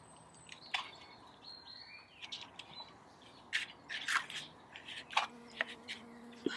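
Birds chirping faintly in the background, with short high calls scattered through, and a few brief clicks and scrapes.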